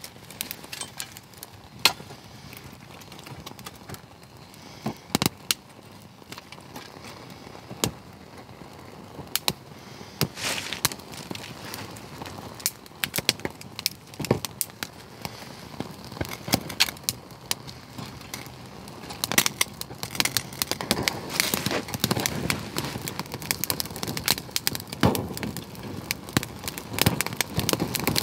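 A wood fire catching in a small stainless-steel camp stove, with sharp crackles and pops from damp kindling. They come only now and then at first, then thicken into steady crackling over the last third.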